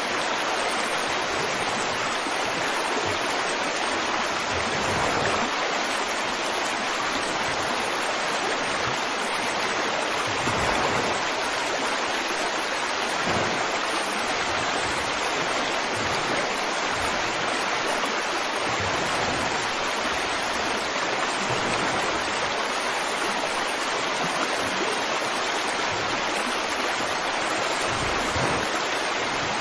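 Running water rushing steadily, like a stream, with a few brief low gurgles.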